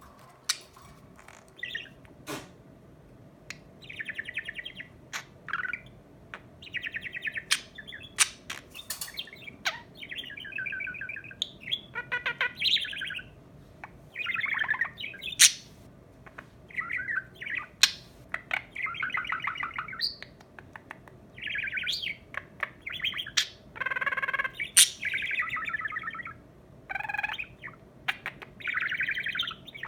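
A budgerigar (blue budgie) chattering and warbling in bouts of a second or two, with sharp clicks and chirps mixed in.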